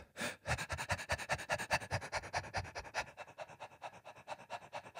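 A man panting rapidly and evenly into a close microphone: quick in-and-out breaths driven from the diaphragm, like a dog's pant, as a breath-support exercise for singing. The breaths get quieter after about three seconds.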